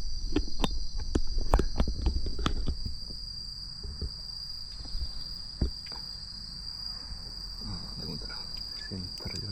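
Night insects, crickets or similar, keep up a steady, continuous high trill. In the first three seconds footsteps and knocks on the microphone are heard over it.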